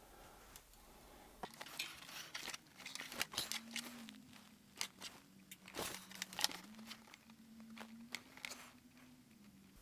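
A potentiometer's pins being soldered onto a printed circuit board with a soldering iron and solder wire: faint, scattered crackles and small clicks.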